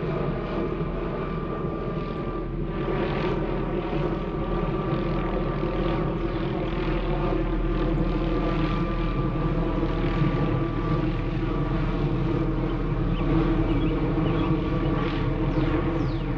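Full-size helicopter flying overhead, a steady drone of rotor and engine; the speaker takes it for a police helicopter.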